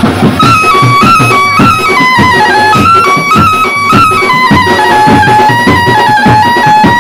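Background music with a steady beat; a lead melody line comes in about half a second in and moves in short steps up and down.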